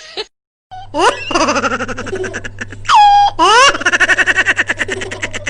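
High-pitched, rapid laughter in quick pulses, with squeals that sweep up in pitch and hold. It starts after a brief cut to silence near the start, with a faint steady hum underneath.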